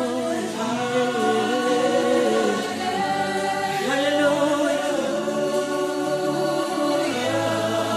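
Gospel worship song: voices singing together in long held notes that change every second or two.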